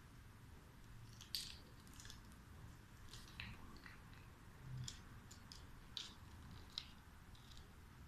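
Faint scattered crinkles and crackles, about a dozen short ones, as an Alexandrine parakeet's beak bites and tugs at paper and foil packaging.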